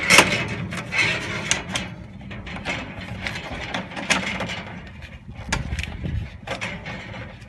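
Irregular clicks, knocks and rubbing as a flexible gas connector's metal nut is handled and fitted onto the threaded inlet of a water heater's gas control valve.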